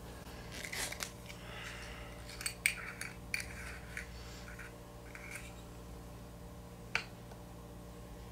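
Faint scrapes and small clicks of a small bottle of fly cement being handled and its screw cap twisted, with one sharper click about seven seconds in.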